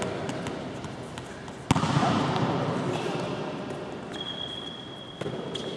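A volleyball smacks hard once, about two seconds in, echoing around a large gym hall, with a lighter smack near the end over a steady hall background.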